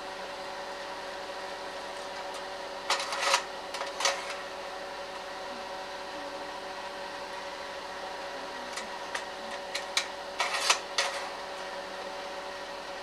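Slide projector running with a steady fan hum, its slide-changing mechanism clicking and clacking in two bursts, about three seconds in and again about ten seconds in.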